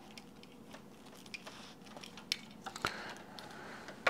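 Scattered light clicks and rustles of a power adapter's cable and plug being handled and connected, with a sharper knock about three seconds in and a louder click at the end.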